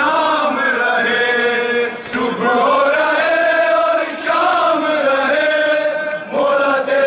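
Men chanting a nauha, a Shia mourning lament, in long sung phrases with a short break about every two seconds.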